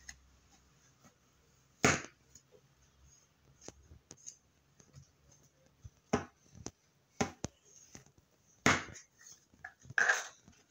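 Thick slime being squeezed and kneaded by hand in a bowl, giving sharp, sticky pops and clicks at irregular intervals, about seven in all.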